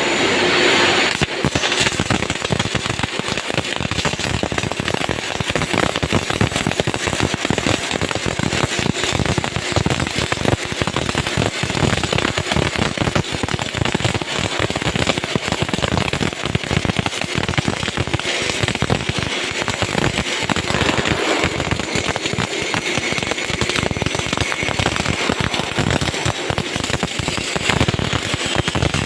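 Electric arc welding: the arc gives a steady, dense crackle that starts about a second in and holds without a break.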